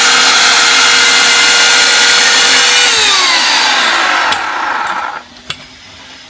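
Titan electric chainsaw running at full speed through a wooden plank, then released about three seconds in and winding down with a falling whine, stopping about five seconds in. A couple of light knocks follow near the end.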